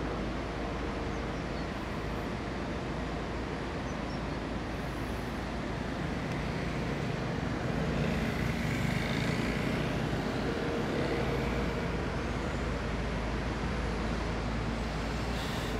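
Heavy diesel machinery, an excavator and dump trucks, running steadily. The engine noise swells heavier for a few seconds in the middle, and a brief hiss comes near the end.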